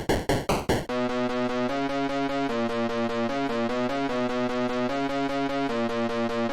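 Synthesizer playing a fast repeated-note keyboard pattern, its chords shifting every second or so. It follows about a second of rapid, evenly spaced sharp hits at the start.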